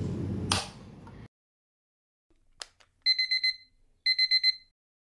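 Electronic alarm clock beeping in two short bursts of rapid high beeps, about a second apart, going off at wake-up time. A sharp click comes about half a second in and another shortly before the beeps.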